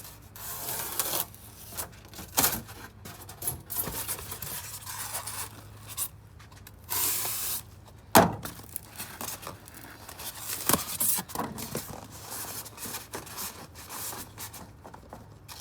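Styrofoam packing pieces rubbing and scraping against each other and the cardboard box as they are pressed in, in irregular bursts, with one sharp knock about eight seconds in.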